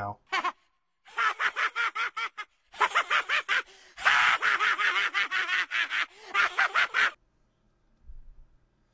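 A cartoon boy's voice laughing hard in rapid, evenly pulsed bursts, in three runs with short breaks for breath.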